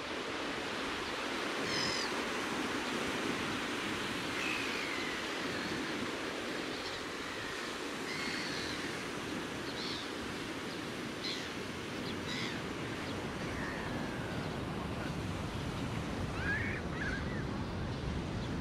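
Baltic Sea surf washing steadily on the beach, with short bird chirps and brief sliding calls scattered throughout.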